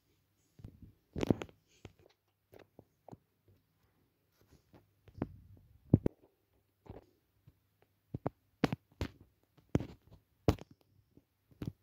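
Scattered plastic clicks and soft knocks from LEGO velociraptor figures being handled and set down on a LEGO baseplate. There are a few louder thumps, about a second in and around five to six seconds, and a run of clicks near the end.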